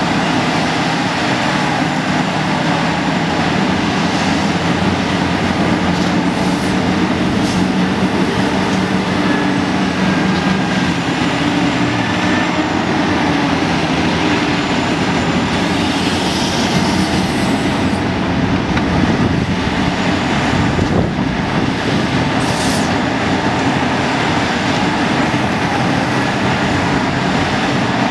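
Caterpillar 5130 hydraulic excavator's repowered diesel engine running loud and steady under load through a dig, swing and dump cycle.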